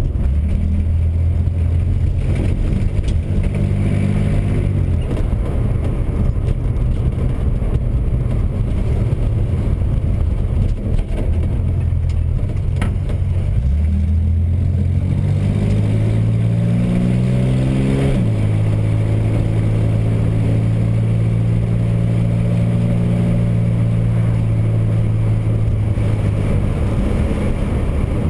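Air-cooled rear-mounted flat-six engine of a 1961 Chevrolet Corvair Rampside, heard from inside the cab while driving. The pitch climbs in the first few seconds and settles, then climbs steadily again before dropping suddenly about eighteen seconds in at a gear change. After that the engine runs at a steady cruise.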